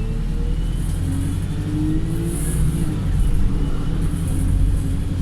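Wright StreetLite single-deck bus heard from inside while under way: a steady low rumble of engine and road noise, with engine and drivetrain tones rising in pitch as it pulls away harder in the first few seconds.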